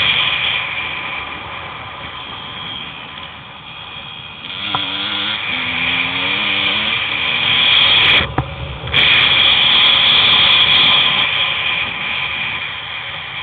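Riding noise picked up by an on-board camera moving fast along a dirt and gravel track: a loud, steady buzz with rattle, which swells about halfway through and cuts out for a moment about eight seconds in.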